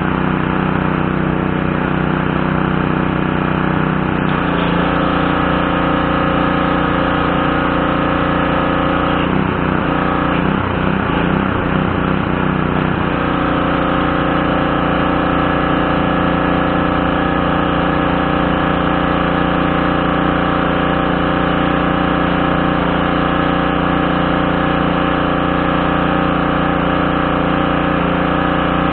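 Craftsman pressure washer's Briggs & Stratton 550E-series 140cc single-cylinder engine running steadily. Its note shifts about four seconds in, wavers unevenly for a few seconds around the middle, then settles back to a steady run.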